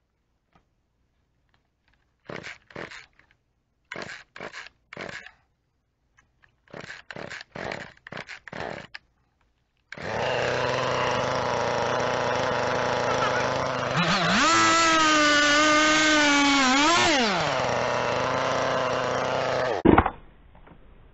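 Chainsaw being pull-started: about a dozen quick rips of the recoil starter cord in three groups fail to start it, because the on switch was left off. Then it starts and runs, revs up for about three seconds, drops back, and is shut off.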